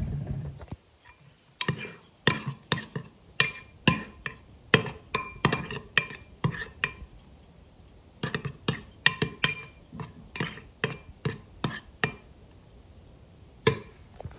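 A metal spoon stirring a thick, creamy soap-and-water mixture in a glass bowl, clinking against the glass over and over with a short ringing tone. The clinks come in two quick runs with a brief pause between them, then one last clink near the end.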